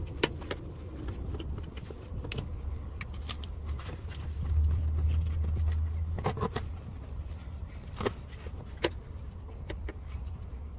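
Scattered clicks and knocks of a gloved hand and tools handling parts under a car, close to the microphone, over a low rumble that swells about four seconds in and fades by six.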